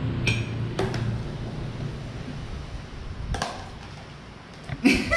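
Metal fork clicking against a ceramic bowl and plates, a few separate sharp clinks with quiet room noise between.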